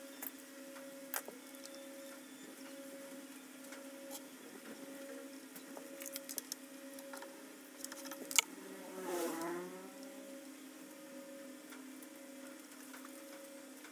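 Scattered light clicks and knocks as PVC-pipe rollers on wire axles are handled against a plastic bucket rim, the sharpest about eight seconds in. Under them runs a steady background hum with a faint tone pulsing about one and a half times a second, and a short swelling swish rises and falls about nine seconds in.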